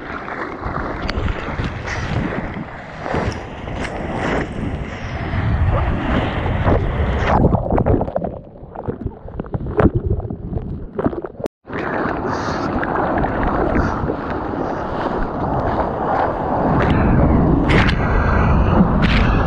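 Ocean water rushing and splashing around a board-mounted GoPro as a bodyboard rides breaking waves, with wind buffeting the microphone. The sound cuts out for a moment about halfway through, then the wash builds again toward the end.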